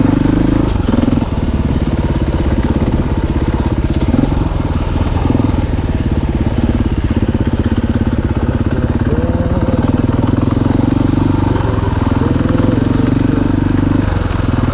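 Dirt bike engine running steadily while being ridden along a trail.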